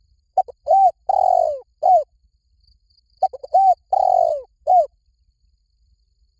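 Spotted dove cooing: two phrases about three seconds apart, each made of a few quick short coos, one longer drawn-out coo and a final short coo.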